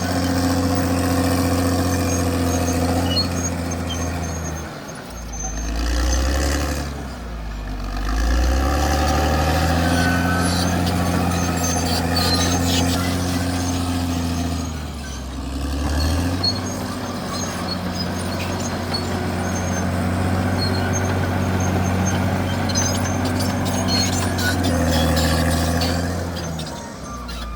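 Caterpillar D6R XL bulldozer's diesel engine running steadily, its speed dipping and recovering several times, around five to eight seconds in and again near fifteen seconds. A few short clanks are heard along with it.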